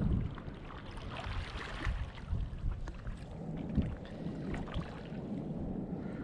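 Wind buffeting the microphone with sea water washing and surging, as a steady low rumble that swells in gusts.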